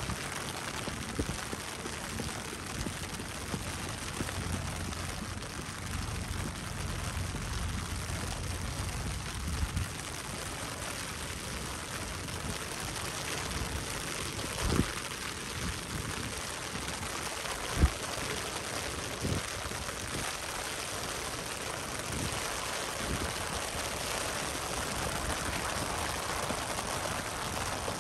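Steady rain falling, an even hiss throughout. A low rumble is heard for about the first ten seconds, and a few sharp taps come in the middle, one louder than the rest.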